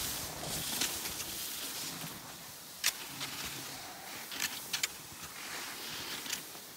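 Cross-country skis swishing over packed snow while ski poles plant, with several sharp clicks from about three seconds in.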